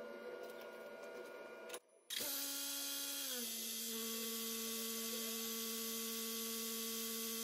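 Faint background noise, then after a brief drop-out about two seconds in, a steady electrical-sounding hum starts. It dips slightly in pitch about a second later and then holds steady.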